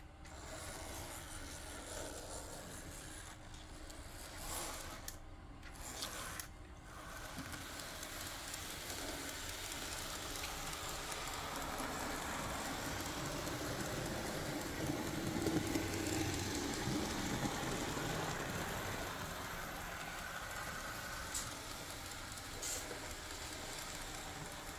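Märklin 81701 Z-scale model steam tank locomotive running around the track with its freight wagons: the small electric motor whirs and the wheels rattle over the rails. The sound grows louder through the middle and eases off toward the end.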